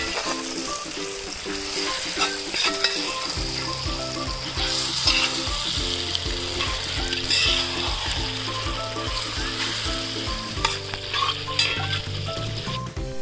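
Pork pieces in masala sizzling and frying in a large metal pot, stirred and scraped with a spatula to mix the cooked pork into the masala.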